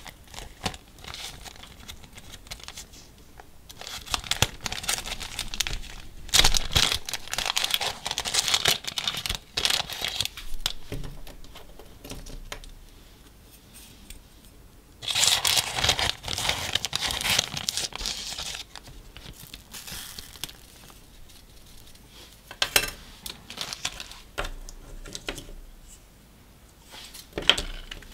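A small plastic zip bag crinkling and rustling as it is handled and opened, in two longer bursts with scattered small clicks between them.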